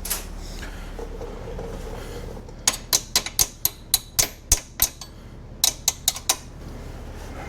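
Socket ratchet clicking in two runs of sharp metallic clicks, about four a second, the second run shorter, as a 15 mm bolt is worked loose.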